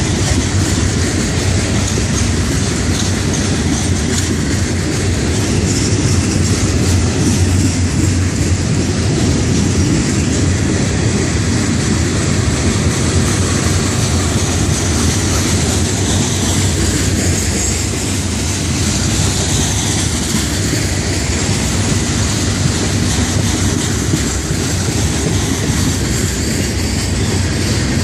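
Florida East Coast Railway freight train's rock-loaded hopper cars, and near the end container cars, rolling past close by: steel wheels running on the rails in a steady rumble.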